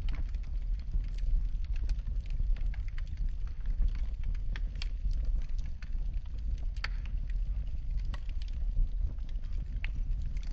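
Wood fire in a fireplace crackling: frequent irregular snaps and pops over a steady low rumble of the flames.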